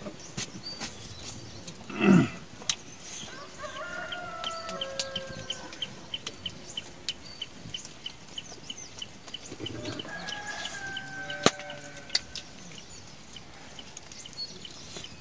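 Rooster crowing twice, several seconds apart, over a high, even chirping of about three a second. A brief loud sound sliding down in pitch comes about two seconds in, and sharp clicks are scattered throughout.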